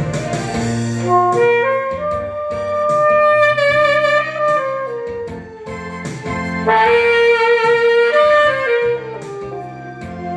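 Saxophone playing a melody of long held notes over a backing track with a low accompaniment and a steady beat; one phrase climbs and then falls away, and a second loud phrase begins about two-thirds of the way in.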